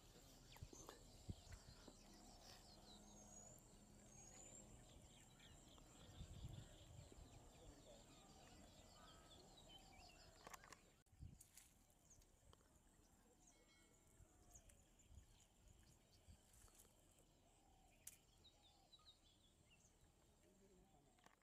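Near silence: faint outdoor ambience with distant voices and scattered bird chirps, dropping quieter about eleven seconds in.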